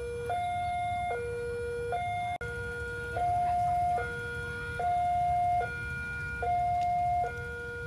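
Railway level-crossing warning alarm sounding a steady two-tone hi-lo call, a higher and a lower tone alternating about every three-quarters of a second, the higher tone louder. It signals that a train is approaching the crossing.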